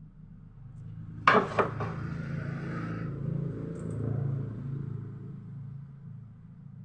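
Two sharp knocks about a quarter second apart, followed by a low hum that swells and then fades away.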